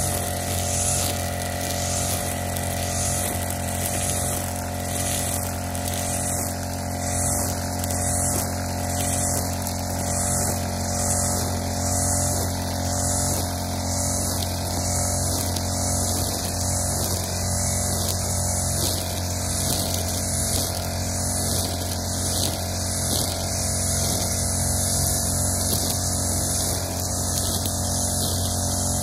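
Backpack brush cutter engine running steadily while its cutting head sweeps through tall grass, with a faint swish that comes and goes with each swing.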